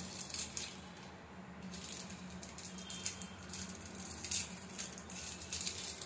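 Thin plastic wrappers crinkling and crackling in the fingers as washing machine cleaning tablets are unwrapped, in a run of short irregular crackles.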